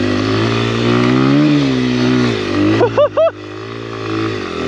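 Honda XR100's air-cooled single-cylinder four-stroke engine running under throttle, its pitch rising and falling about a second and a half in. About three seconds in, three short high squeals come close together, and then the engine drops to a quieter run.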